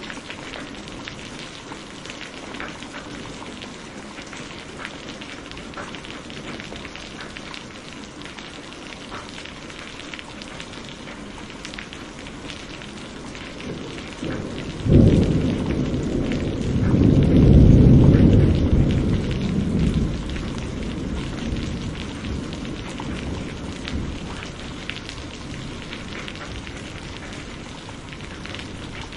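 Heavy rain falling steadily, with close drips pattering. About halfway through, a thunderclap breaks suddenly and rolls into a deep rumble that peaks a few seconds later, then fades back under the rain.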